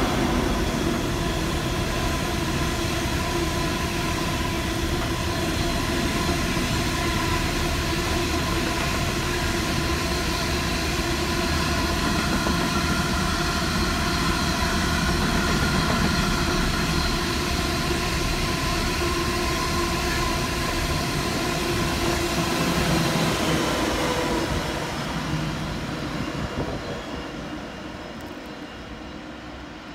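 Pacific National TT-class diesel-hauled coal train passing: hopper wagons rolling by under a steady diesel locomotive drone, with a locomotive going past close by a little over 20 seconds in. The sound then fades steadily as the train moves away.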